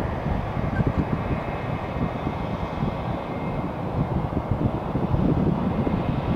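Wind buffeting the camera microphone: a steady, fluttering low rumble with no distinct events.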